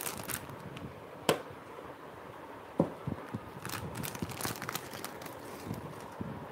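Handling noise: a plastic jewellery packet crinkling, with a sharp click about a second in and a duller knock near three seconds as a cardboard jewellery box is closed.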